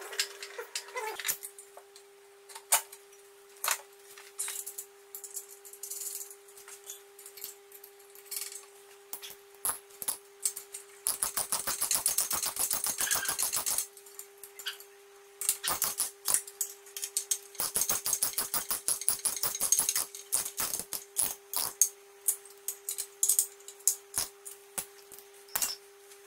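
Runs of rapid metallic clicking, with single clicks between, from hand tools working the bolts of steel gym equipment during assembly. A faint steady hum lies underneath.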